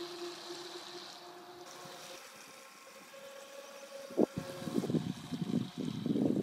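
HBX Wildseeker radio-controlled speedboat's motor whining steadily and fading as the boat runs farther out across the water. From about four seconds in, gusts of wind buffet the microphone and drown it out.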